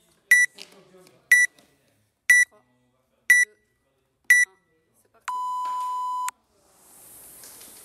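Workout timer counting down: five short high beeps a second apart, then one long, lower beep about five seconds in that signals the start. Right after, a rowing machine's fan flywheel starts whooshing as the rowing begins.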